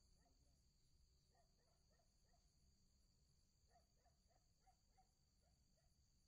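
Very faint night ambience: crickets trilling steadily and high. There are faint short calls in runs of several notes, about four a second, around a third of the way in and again in the middle.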